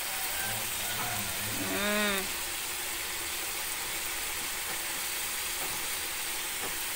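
Ground spice paste sizzling steadily as it fries in oil in a pan. A short pitched call that rises and falls sounds about two seconds in.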